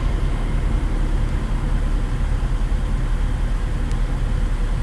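Volvo L90G wheel loader's diesel engine idling steadily, heard from inside the cab.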